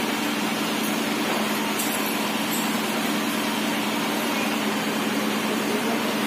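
Steady hum of a running motor over an even rushing noise, with no change in level.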